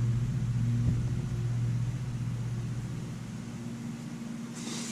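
A steady low hum from a running machine or electrical equipment, fading slowly. A brief rustle or scrape comes near the end.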